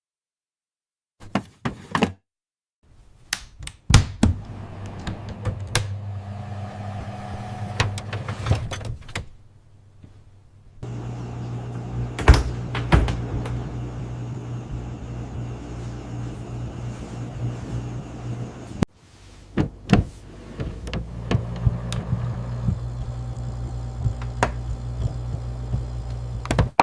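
Refrigerator doors opening and closing with thunks, knocks and clicks over a low steady hum, in three stretches with short pauses between them.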